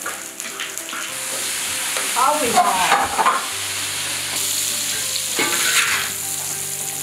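Food sizzling in a hot wok while a metal spatula stirs and scrapes it, with louder scraping strokes about two to three seconds in and again near six seconds.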